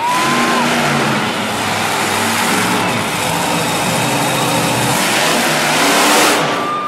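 Monster truck engine revving loudly as the truck drives across the arena, the pitch rising and falling with the throttle, and loudest near the end as the truck climbs onto a pile of crushed cars.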